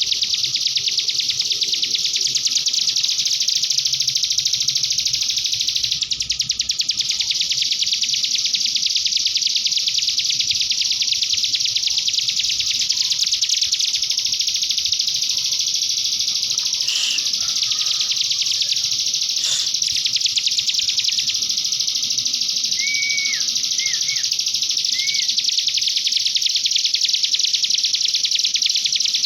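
Cigun (common iora) singing a canary-like song: one long, very fast trill that doesn't break. A few short separate whistled notes come in about two-thirds of the way through.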